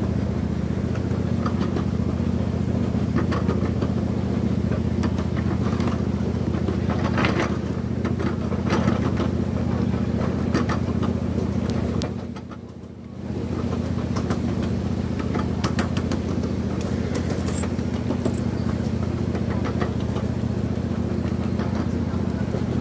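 Engine of a ride-on miniature train running at a steady pace, with scattered clicks and clatter from the wheels on the track. The engine sound drops away briefly about halfway through, then comes back.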